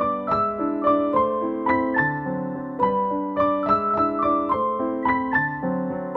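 Background piano music: a gentle melody of single notes played at a steady, unhurried pace.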